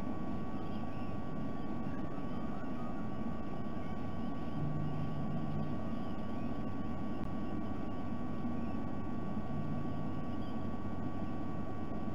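Steady low rumble with a constant electrical hum tone: the background noise of an outdoor nest camera's microphone, with no distinct events.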